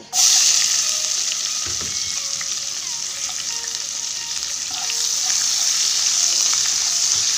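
Chopped onion dropped into hot mustard oil in a kadai: a sudden loud sizzle that keeps on steadily, swelling again after about five seconds, with a spatula stirring the onion through the oil near the end.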